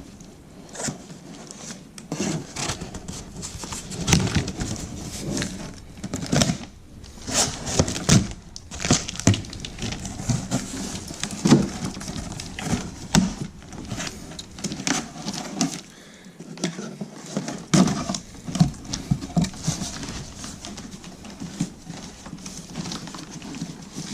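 A cardboard shipping box and its packing being worked open by hand: irregular crinkling, rustling and scraping with scattered sharp knocks.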